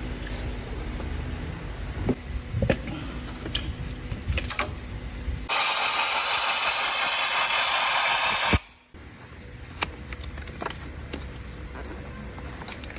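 Tools clicking and rattling against metal, broken about halfway through by a loud high hiss of pressurised air or spray. The hiss lasts about three seconds and cuts off suddenly.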